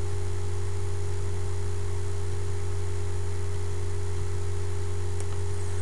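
Steady low electrical mains hum with a fainter higher tone above it and an even background hiss.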